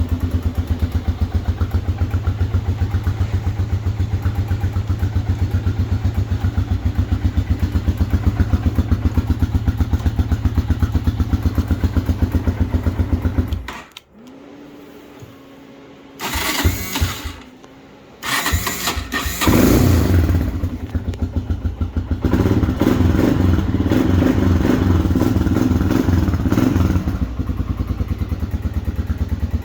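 Arctic Cat DVX 250 ATV engine idling with an even pulsing exhaust, then shut off about fourteen seconds in. After a short quiet it is cranked twice by the starter, catches on the second try, runs faster for several seconds, then settles back to a steady idle.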